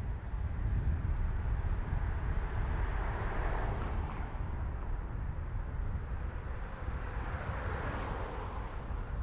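Street ambience heard from a moving bicycle: a steady low rumble of wind and road noise, with traffic swelling and fading twice, about three and eight seconds in, as vehicles pass.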